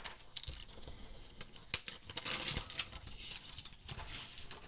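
Protective wrap being peeled off a laptop's aluminium underside: quiet rustling and crinkling of the sheet, with a few small clicks and taps as the hands handle the laptop.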